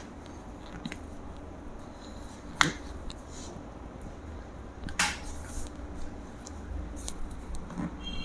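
Two sharp cracks about two and a half seconds apart, the first the louder: joints popping under a chiropractic adjustment. A few faint clicks and rustles of handling fall between them.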